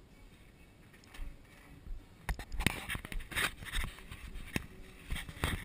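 Quiet room tone, then from about two seconds in a string of sharp clicks and short scraping rustles.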